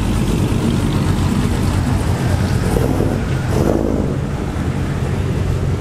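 Pickup truck engines running, a loud steady low rumble.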